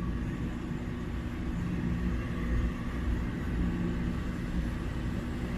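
Steady low background rumble with a faint hum, unchanging throughout, with no distinct events.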